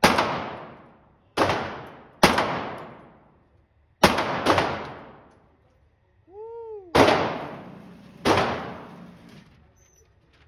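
Springfield Hellcat Pro 9mm pistol fired seven times at an uneven pace, each shot sharp and followed by a long echoing tail in the indoor range. A brief whine that rises and falls comes between the fifth and sixth shots.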